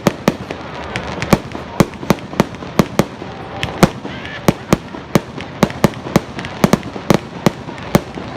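Fireworks display: a rapid, irregular string of sharp bangs, about two to three a second, over a steady background haze of noise.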